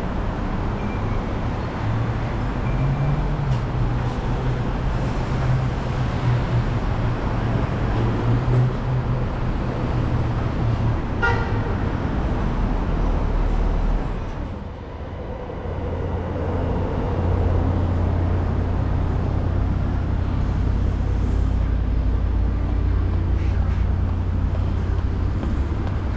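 City street traffic from the busy road below: a steady low rumble of engines and tyres that dips briefly about halfway through.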